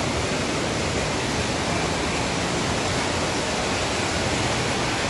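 Steady, even rushing noise with a faint low hum underneath, unchanging throughout.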